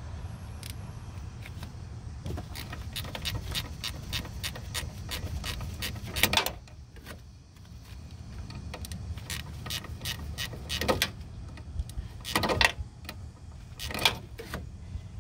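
Hand ratchet wrench clicking as bolts on a car's ABS unit are loosened, in runs of quick clicks with a pause about halfway through and a few louder knocks.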